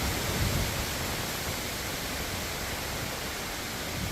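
Strong hurricane wind rushing steadily through the trees, with gusts buffeting the microphone in uneven low rumbles.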